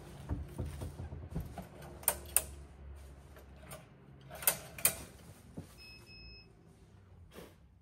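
Sharp clicks and knocks from the latches and hardware of a camper van's outside storage compartment being opened and handled: two quick pairs of clicks a couple of seconds apart, then a single knock near the end. A faint low hum fades out in the first few seconds, and a short faint beep sounds after the second pair of clicks.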